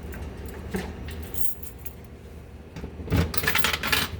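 Light metallic clinking and rattling: a few separate knocks in the first two seconds, then a dense run of rattling clicks about three seconds in that lasts about a second.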